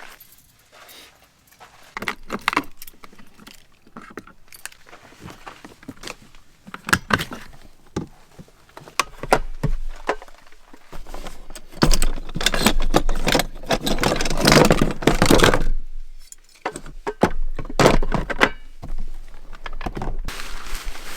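Irregular metallic clinking and rattling from loose metal items being handled, with a dense, louder stretch of clatter in the middle.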